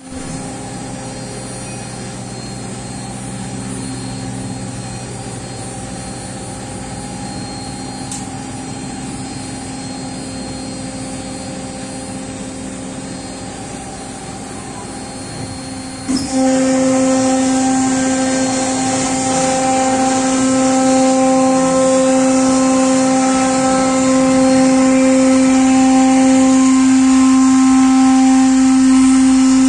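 CNC router spindle running and cutting an aluminium composite panel (ACP) sheet: a steady hum and whine over a hiss. About sixteen seconds in it abruptly gets louder, with a stronger hum and brighter hiss.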